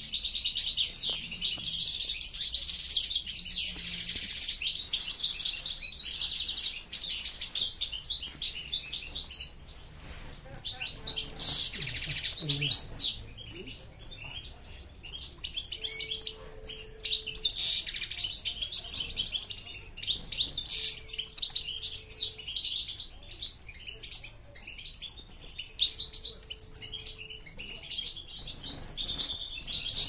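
Several caged songbirds chirping and singing in fast, high twittering phrases almost without pause, easing off briefly around ten seconds in and again a few seconds later.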